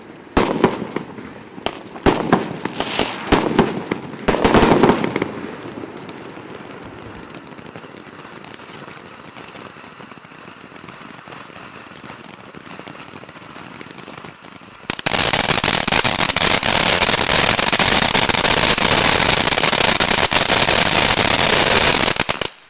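Premier Salute 'Gorshochek – vari!' ground firework fountain burning. Sharp pops and crackles for the first few seconds, then a steady hiss of sparks. About fifteen seconds in it turns suddenly much louder and denser, then cuts off sharply near the end.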